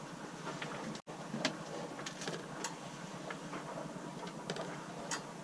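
Sailboat cabin background: a steady hiss with scattered small clicks and creaks. It breaks off for an instant about a second in.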